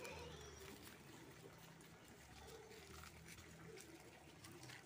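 Near silence: faint outdoor background with a steady low hum.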